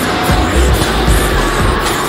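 Loud arena music over the PA, mixed with a monster truck's supercharged V8 engine revving as the truck drives and lifts into a wheelie.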